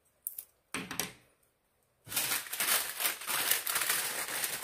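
Two light taps, then from about two seconds in a steady crinkling rustle as a crinkly sheet is handled and crumpled.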